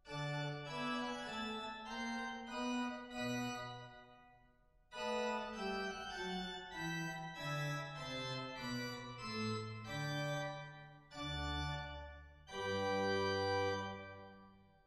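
Organ music playing slow, sustained chords over a moving bass line, with a brief pause about five seconds in and a louder swell near the end.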